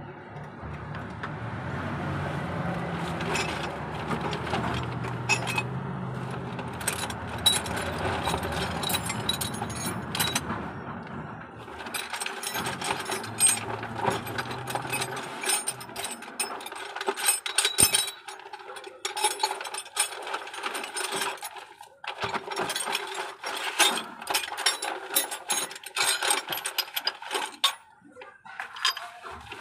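Ratchet wrench clicking in quick, irregular runs through the second half, over a steady low hum in the first half that fades out about halfway.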